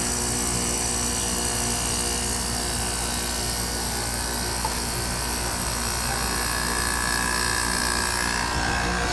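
Gibson 5000 BTU window air conditioner running just after its Rechi compressor kicked on: a steady compressor hum under the rush of the fan blowing air.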